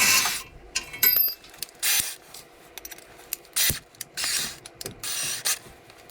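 Scattered short scrapes, rubs and sharp clicks of hand work with tools and parts, coming in uneven bursts about every half second to a second.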